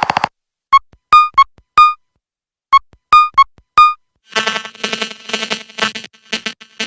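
Nothing Phone (1) built-in ringtones playing one after another. The first is a short electronic phrase of four clipped beeps, played twice. From about four seconds in, a different, busier ringtone of glitchy buzzing pulses takes over.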